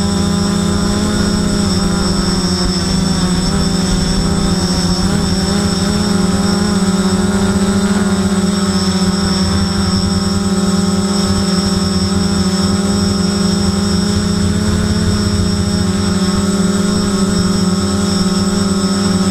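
FPV multirotor's electric motors and propellers heard from its onboard camera in flight: a loud, steady whine, its pitch wavering slightly as the throttle changes a few seconds in.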